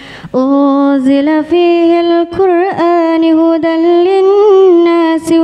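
A young woman's voice reciting the Quran in melodic tilawah style through a microphone. After a quick breath she holds long sung notes, with wavering ornamented turns in the middle, and takes another short breath near the end.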